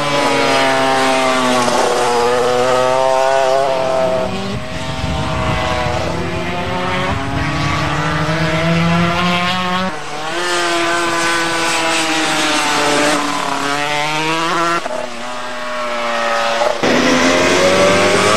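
Honda RS250 two-stroke racing motorcycles running at high revs on the track. Their engine notes climb in pitch and drop sharply several times.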